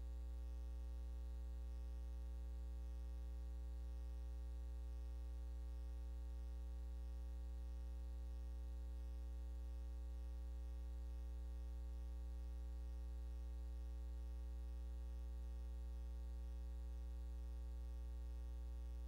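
Steady low electrical hum with a faint hiss and nothing else: the empty soundtrack of a silent archival film transfer.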